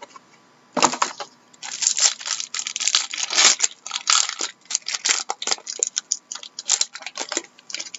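Plastic wrapper of a hockey trading-card pack being torn open and crinkled in the hands, with a quick run of irregular crackles that starts about a second in and dies away near the end.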